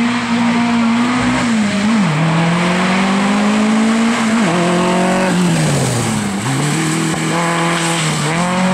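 A classic Volkswagen Beetle rally car's air-cooled flat-four engine under hard acceleration. The revs climb and drop sharply with each gear change, fall away as the car slows about six seconds in, then pick up again.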